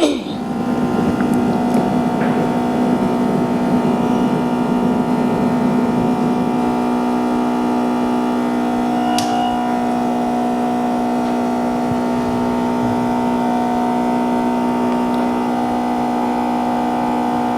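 Steady electrical machine hum, several steady tones at once, with one small click about nine seconds in.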